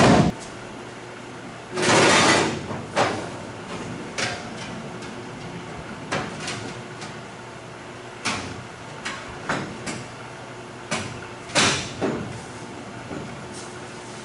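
Sheet-metal wheel-well tub being handled and set into a pickup's steel bed: a series of separate metal clanks and knocks, with a longer, louder clatter about two seconds in and two strong knocks near the end.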